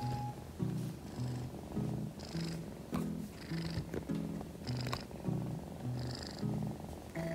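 A kitten purring as it is stroked, under background music of short repeating notes.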